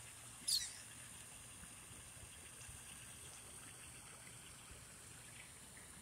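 Ducks feeding on scattered pellets, making faint soft pecking and dabbling ticks. A single short, high chirp sweeps downward about half a second in.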